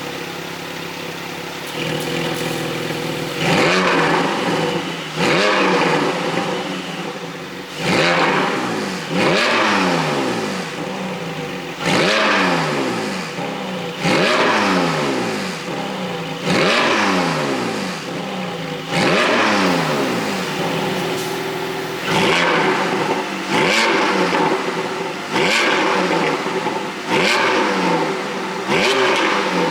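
2022 Porsche 718 Boxster 4.0 GTS's naturally aspirated flat-six idling for a few seconds, then blipped over and over, a rev every second or two, each dropping back with pops and crackles from the exhaust, the effect of an ECU pop-and-crackle tune.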